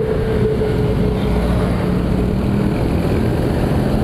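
Motor scooter engine running while riding in traffic, a steady engine note that drops slightly in the first second or so, over a loud low rumble of wind and road noise on the camera microphone.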